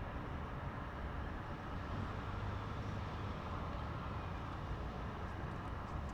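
Stock exhaust of a 2017 Jaguar F-Type, heard close at the tailpipes, running steadily with a low rumble and no revving.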